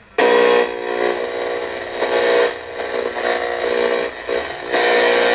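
Super Sound portable radio-cassette player's small speaker playing a radio station while its tuning knob is turned. The sound is loud, steady and pitched, and it shifts about two and a half seconds in and again near the end.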